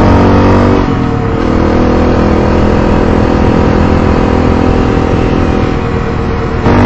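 Motorcycle engine running while riding. Its pitch drops about a second in, then it gets louder and higher near the end as it accelerates.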